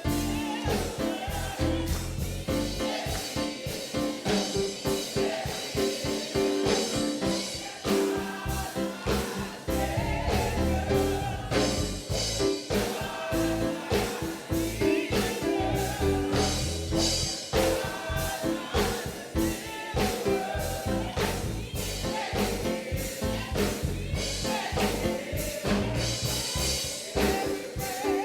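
Gospel music: singing over a band with drums and bass keeping a steady beat.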